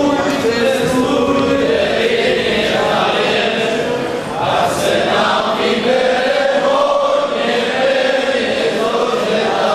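Group of young men singing a folk song together.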